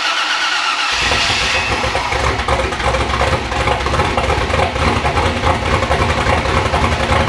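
Old GMC pickup's turbocharged engine being cranked by the starter for about a second, then catching and running at a steady idle. It is the first start after a missing tach signal that would not fire the injectors was fixed.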